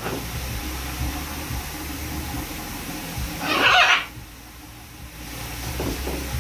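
Shower water running with a steady hiss and low rumble, and a single loud, short macaw squawk about four seconds in.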